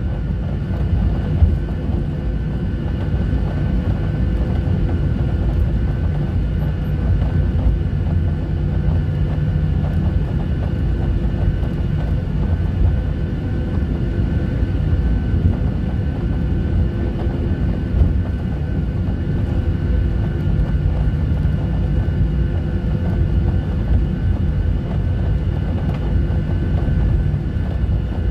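Jet airliner taxiing, heard from inside the cabin: a steady low rumble of engines and rolling wheels, with a few faint steady tones from the engines above it.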